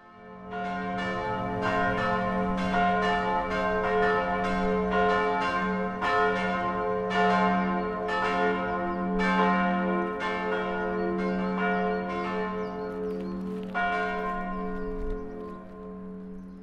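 Church bells ringing: irregular strokes about twice a second over a sustained, overlapping hum of ringing tones. The last stroke comes about three-quarters of the way through, and the ringing then dies away.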